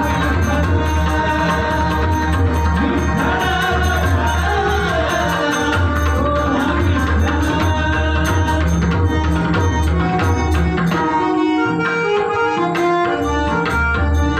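Bhajan accompaniment: harmonium holding notes while a pakhavaj and a tabla drum, with a voice singing in the first half. Toward the end the drumming turns into a fast, dense run of strokes.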